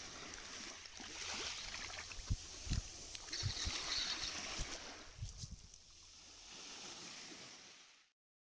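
Small waves washing on a shingle shore, with splashing at the water's surface from a hooked mackerel being reeled in, and a few low knocks around the middle. The sound cuts to silence near the end.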